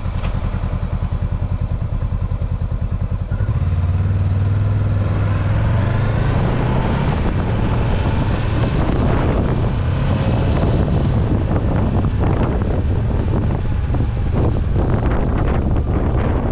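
2022 Honda CB500X's parallel-twin engine running at low revs with an even low pulse, then accelerating about three seconds in and running steadily at road speed, with wind noise over it.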